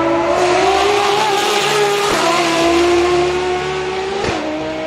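A high-performance car engine revving hard under acceleration. Its pitch steps down at a gear change about two seconds in, then a sharp break comes near the end.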